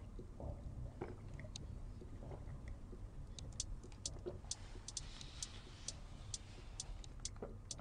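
A man gulping milk from a glass, a few faint swallows about a second or more apart. From about halfway on, faint irregular high clicks tick away in the background.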